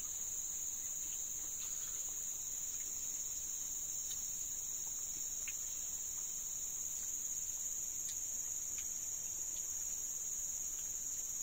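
Steady chorus of forest insects, a continuous high-pitched shrill drone that does not let up, with a few faint soft clicks scattered through it.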